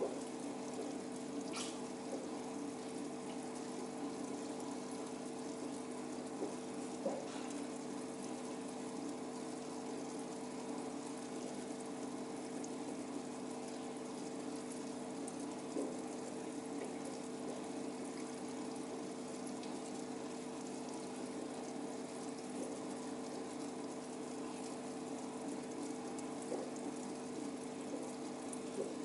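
Aquarium filter and pump running: a steady hum with two even tones over continuous bubbling, trickling water, with a few faint clicks.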